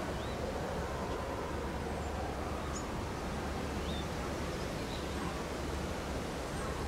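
Steady outdoor background noise with a low rumble, and a few short, faint bird chirps scattered through it.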